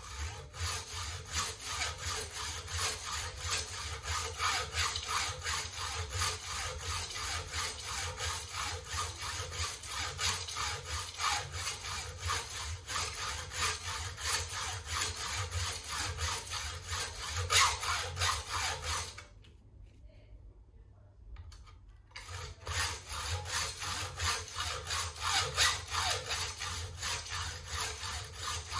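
Hand hacksaw cutting a brass strip clamped in a bench vise, with steady rhythmic rasping back-and-forth strokes. The sawing stops for about three seconds past the middle, then starts again.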